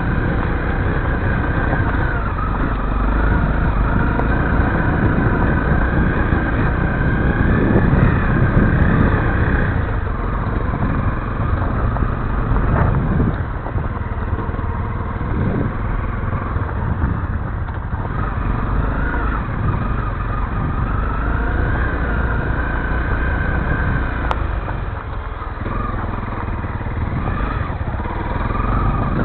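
Honda CRF250L's single-cylinder four-stroke engine running under way on a rough gravel trail, its revs rising and falling as the rider works the throttle. Over it sits a steady low rumble from the bike-mounted camera, and it is loudest about eight seconds in.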